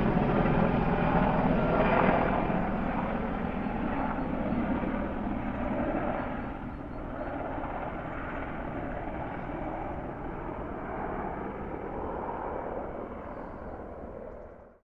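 AH-64 Apache military helicopter flying away, its rotor beat and twin turbine engines fading steadily after the flyover, then cutting off suddenly near the end.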